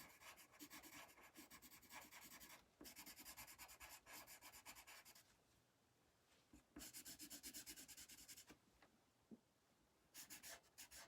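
Coloured pencil shading on paper: faint, quick back-and-forth scratchy strokes, several a second, in three runs broken by short pauses around the middle and near the end.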